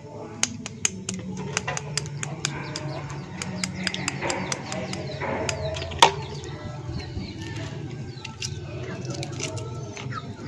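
Shells of hard-boiled eggs crackling and clicking as they are cracked and peeled by hand, many small sharp clicks with one louder crack about six seconds in.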